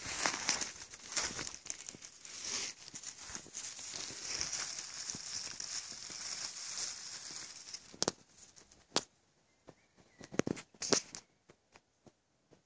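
Close rustling and crinkling of dry leaf litter and grass as a hand reaches in and picks a mushroom from the forest floor. After about eight seconds it drops to a few short clicks and rustles.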